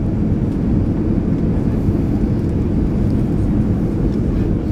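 Steady low rumble of an Airbus A320 heard from inside the passenger cabin during the landing approach: engine and airflow noise.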